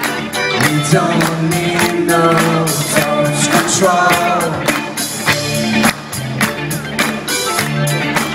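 Live rock band playing: electric guitars, bass, drums and keyboard over a steady drum beat, with a vocalist singing.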